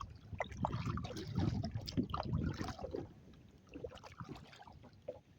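Kayak paddle strokes, with water splashing and dripping off the blade and the hull. The splashing is busiest for the first few seconds, then thins to scattered drips and knocks.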